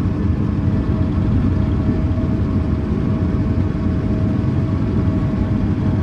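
Steady running of a New Holland combine heard inside its cab while harvesting wheat and unloading grain through its unloading auger into a grain cart alongside: a constant low rumble with a steady higher whine over it.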